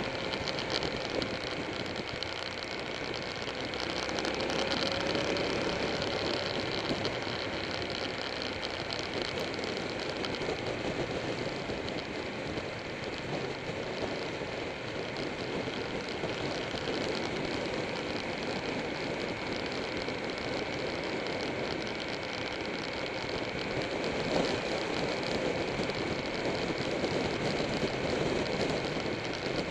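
Buell 1125R motorcycle's V-twin engine running at road speed through mountain curves, mixed with steady wind rush on the bike-mounted camera; the engine note rises and falls slightly about five seconds in.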